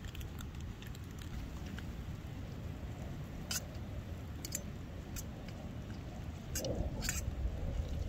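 Soup mix pattering softly out of a packet into a stainless steel camp pot, then a metal spoon stirring noodles, clinking and scraping against the pot several times in the second half, over a steady low rumble.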